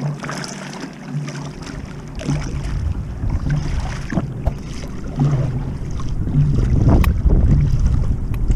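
Double-bladed kayak paddle dipping and splashing in repeated strokes, with water moving along the hull and wind rumbling on the microphone; the wind rumble grows stronger after about a second and a half.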